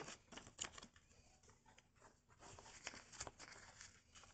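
Small folded paper pocket timetables being handled: faint crisp rustles and light taps of paper card, in a cluster at the start and another about two and a half seconds in.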